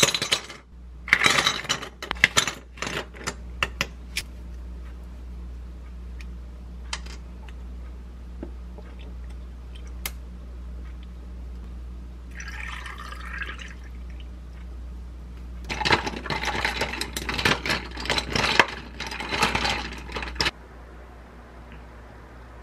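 Ice cubes tipped from a plastic scoop clatter into a glass mug, a string of clinks in the first few seconds. Later water is poured into the glass mug over the ice and cold brew concentrate: a short pour, then a longer stretch of pouring with ice clinking and cracking.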